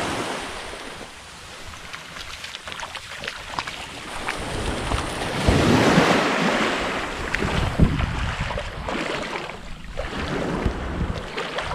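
Sea water splashing and sloshing, with wind buffeting the microphone; the splashing swells loudest around the middle.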